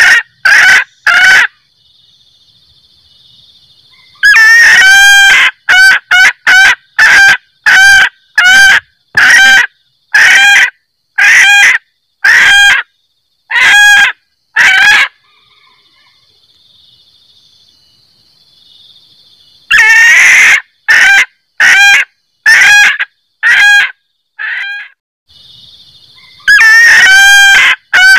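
Junglefowl hen (an F1 hybrid) giving her loud cackling 'kek-kek' call, the call used to draw in males. It comes in bouts of short, sharp calls about one every 0.7 seconds, each bout opening with a longer call, with pauses of a few seconds between bouts. A faint steady high whine fills the pauses.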